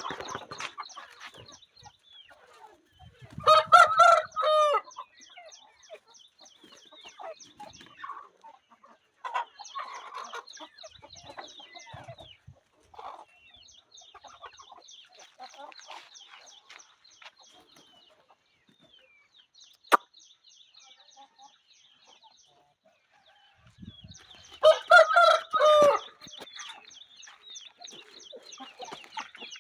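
A rooster crowing twice, once about three seconds in and again near the end, with softer clucking between. A single sharp click comes about two-thirds of the way through.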